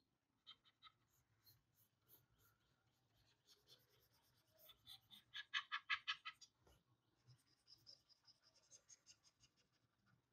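Faint scratching of a stylus on a drawing tablet making quick repeated hatching strokes, densest and loudest around the middle.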